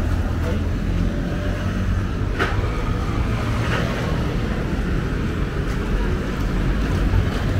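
City street ambience: a steady low rumble of road traffic, with two brief knocks about two and a half and nearly four seconds in.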